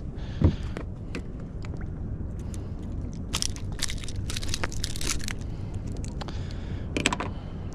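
Scattered clicks, crackles and rustling from a just-landed calico bass being handled to get the hook of a surface iron jig out, with a sharp knock about half a second in, over a steady low rumble.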